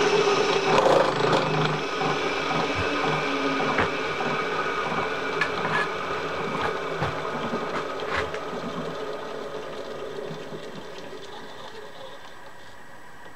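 Vertical milling machine running with a gear cutter in the teeth of a gear blank held in a dividing head, with a few sharp clicks; the sound fades gradually over the last few seconds as the spindle winds down.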